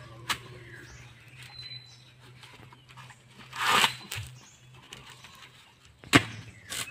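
Coconut husk being torn: one loud tearing sound lasting about half a second midway, then a sharp knock near the end.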